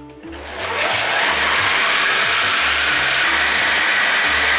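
Food processor bowl on a Kenwood kitchen machine grinding salted peanuts and sugar. The motor spins up about half a second in to a steady, loud grinding whir with a thin high whine over it.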